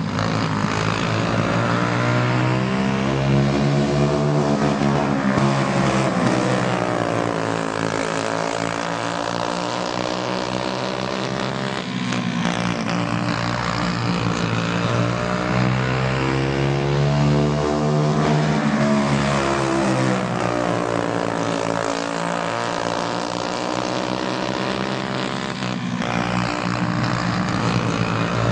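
Several Briggs & Stratton Animal kart engines, small four-stroke singles, racing together, their pitch repeatedly dropping as they back off into the turns and climbing again as they accelerate down the straights.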